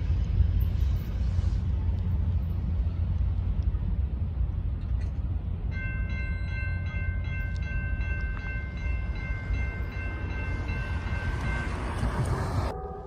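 Freight train rumbling as it moves off past the grade crossing, slowly fading. About six seconds in, the crossing's warning bell starts ringing steadily with regular strikes, and it stops about six seconds later as the signals shut off.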